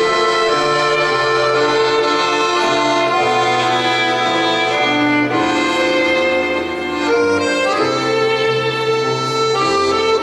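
Instrumental background music with long held notes and chords changing every second or so.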